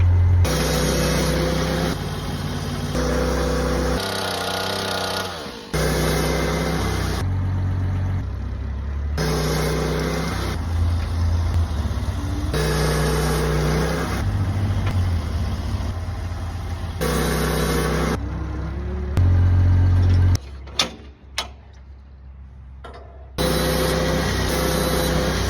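A portable sawmill's engine running under load while cutting pine logs, its pitch shifting in abrupt steps. Near the end it drops away briefly for a few sharp knocks, then starts again.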